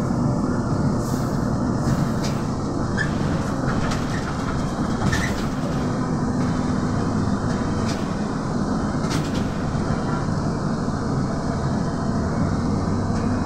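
Cabin noise of a Trolza-5275.05 Optima trolleybus under way: the steady rumble of the electric drive and tyres. A few short clicks and knocks come from the body.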